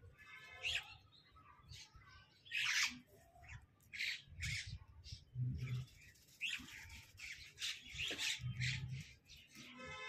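Parrot calling in a string of short squawks and chirps, about one a second, the loudest about three seconds in.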